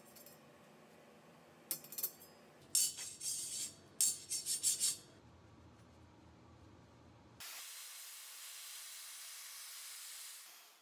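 A handheld gas torch burning with a steady hiss that starts abruptly about seven seconds in. Before it come a few short scraping, clinking noises of metal being handled.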